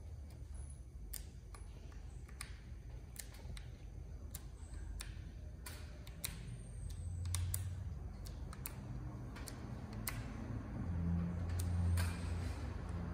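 Scattered light clicks at irregular intervals over low handling rumble, which swells twice, about halfway through and near the end.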